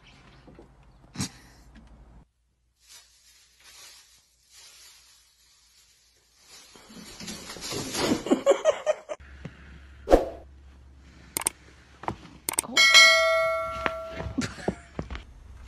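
A bell-like ding that rings on for about a second and a half near the end, the notification chime that goes with a subscribe-button animation. Before it come a couple of seconds of scuffling noise and a few sharp clicks.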